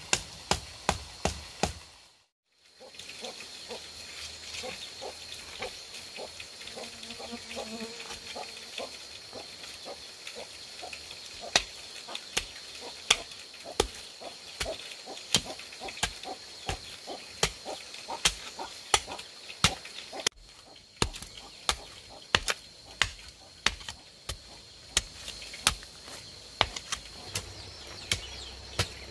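A long run of sharp tool blows on bamboo, one to three a second, with a short break about two seconds in. A steady high insect drone runs underneath.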